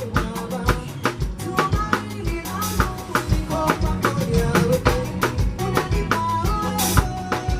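Live band playing an upbeat sebene-style groove: a drum kit keeps a fast, steady beat of kick, snare and rimshots under a bass line and melodic instrument lines. Cymbal crashes come about a third of the way in and near the end.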